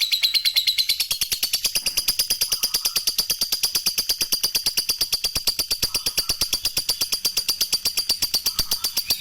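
Lovebird singing a long 'ngekek': a rapid, even chatter of high, sharp notes, about ten a second, held without a break.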